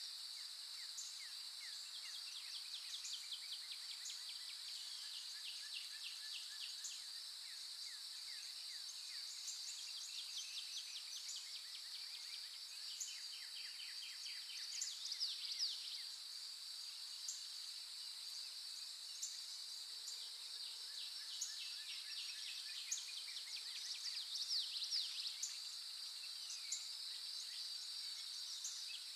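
A steady high-pitched insect drone with birds chirping and trilling over it, and a few louder bird calls near the middle and again near the end.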